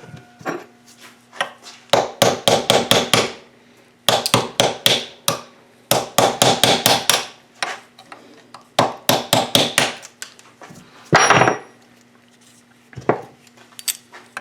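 Hammer tapping on a punch to drive the shaft out of a seized oil pump, in four quick bursts of sharp strikes about six a second, with one heavier, longer noise about eleven seconds in.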